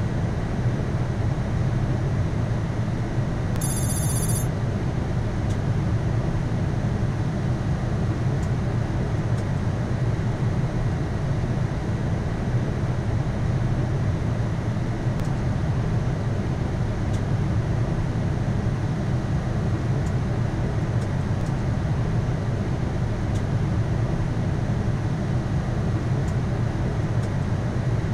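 Steady flight-deck noise of a Boeing 787-9 on final approach: an even rush of airflow and engine hum. About four seconds in there is one short, high ringing chime lasting about a second.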